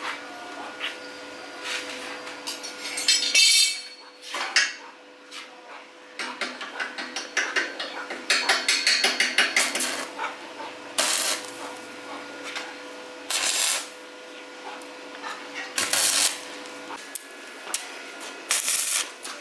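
Metal tools and parts clinking and knocking during motorbike work, with a quick run of even ticks about halfway through and several short bursts of hissing noise. A faint steady hum sits underneath.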